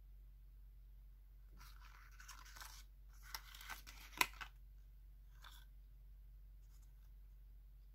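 Handling noise from a slide sandal and its card hang tag being turned in the hands: rustling and a few sharp clicks, bunched about two to four seconds in, with one sharp click the loudest, over a faint low hum.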